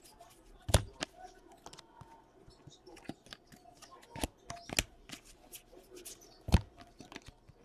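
Trading cards being handled and flipped through, a run of light rustles and ticks with three sharp clicks: about a second in, near five seconds and about six and a half seconds in.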